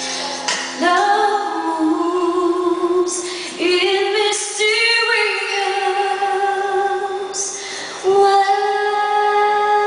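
A woman singing live into a microphone, holding about three long notes that each slide up into pitch as they begin.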